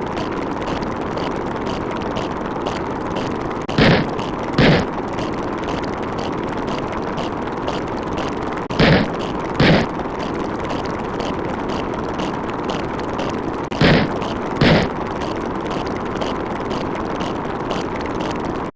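A looped sound effect: a steady rushing noise, broken every five seconds by a pair of short heavy thumps or bangs about a second apart.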